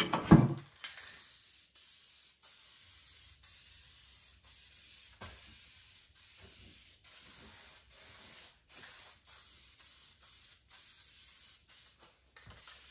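Aerosol can of yellow spray paint hissing steadily in a series of passes over a mower deck, broken by many short breaks as the nozzle is released. A brief loud sound comes right at the start.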